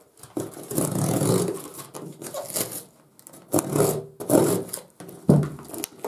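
A tightly taped mail parcel being torn and wrenched open by hand in several hard pulls, its packaging scraping and ripping, with short pauses between.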